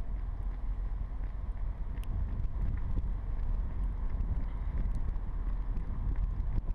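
Wind buffeting an outdoor microphone: a steady low rumble with a faint hiss above it.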